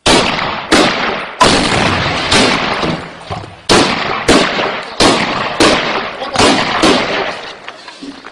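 An RPG launch blast at the start, then a string of heavy gunshots, roughly one every 0.7 seconds. Each bang echoes and dies away off the surrounding walls.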